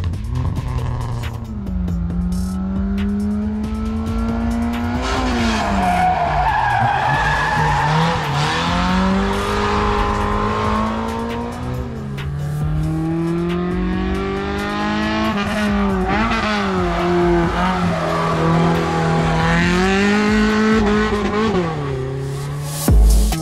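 A car's engine revving hard around an autocross course, its pitch climbing and then dropping sharply several times as it shifts or lifts between corners. Tires squeal through the turns, most strongly through the middle.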